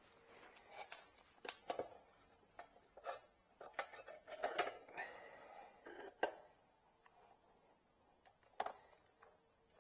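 Tools and metal parts being handled: scattered light clicks and clinks, busiest in the first six seconds, with one more click near the end. No drill is running.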